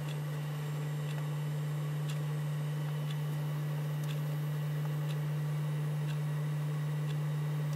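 A 750-watt power inverter humming steadily as it powers an electric skillet, one even low tone, with a faint tick about once a second.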